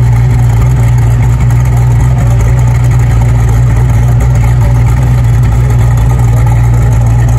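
Supercar engine idling steadily, a loud, unchanging low hum.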